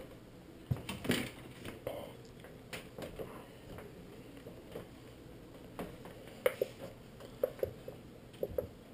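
Faint handling noises: scattered light clicks and taps, with several brief squeaks in the second half.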